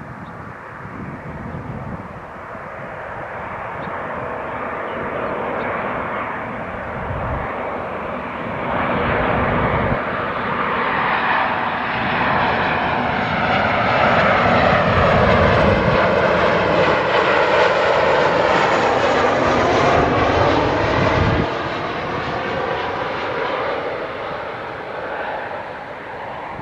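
Jet engines of a Boeing 737 on landing approach, a rushing whine that grows louder as the airliner passes close by, peaking about two thirds of the way in with sweeping, falling tones, then easing off.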